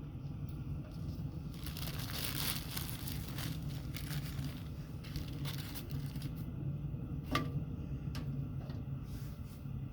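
Small wood fire crackling in a homemade bucket wood stove being lit for the first time: irregular pops and rustling, with one sharp crack about seven seconds in, over a steady low hum.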